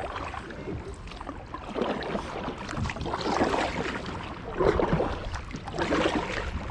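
Kayak paddle strokes in river water: the blades dip and splash in a steady rhythm, about one stroke every second and a half.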